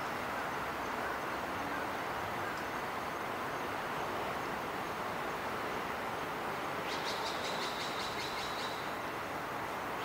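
Steady outdoor background noise, even and unbroken. About seven seconds in, a rapid series of high ticking calls runs for about two seconds.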